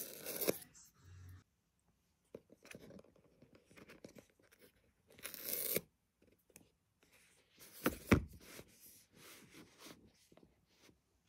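Cardboard phone packaging and a paper insert being handled: short bursts of rustling and tearing near the start and about halfway through, and a sharp thump about eight seconds in as a box is set down.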